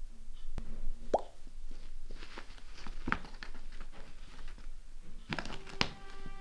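Rustling, scuffing and a few sharp knocks as a kitten paws and digs at the inside of a fabric carrier bag. Music comes in near the end.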